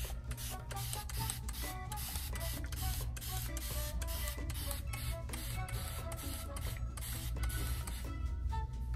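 A plastic spray bottle misting water in many quick hissing squirts, over background music.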